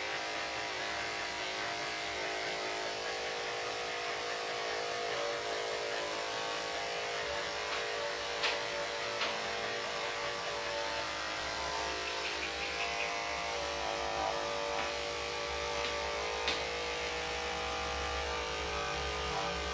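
Corded electric dog-grooming clipper fitted with a #4F blade, running steadily as it trims the dog's coat, with a few light clicks along the way.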